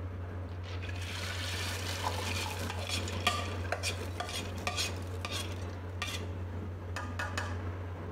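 Whole masoor lentils poured from a bowl into a pot of hot liquid with a rushing patter, then a metal slotted spatula stirring them in, clinking and scraping against the metal pot in a run of sharp taps.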